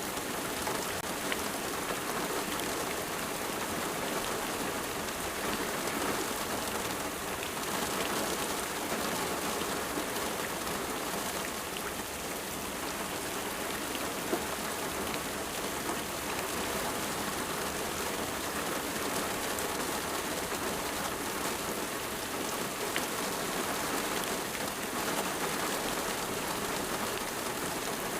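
Steady rain falling and pattering on a surface, with many fine drops.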